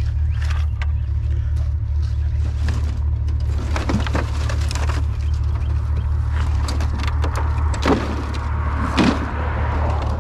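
Pickup truck running with a steady low engine and road drone, with scattered light knocks and rattles.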